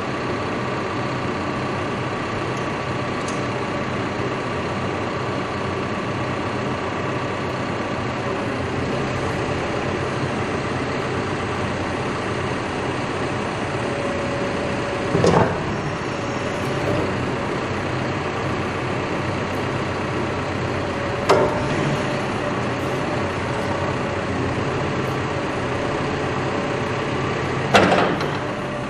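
Cat backhoe's diesel engine running steadily, with a faint steady whine over it. Three short, louder knocks come about halfway through and twice more near the end.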